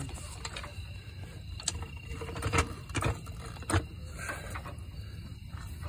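A few scattered sharp metal clicks and clinks as a washer and spacer are handled and fitted by hand onto a differential mount bolt.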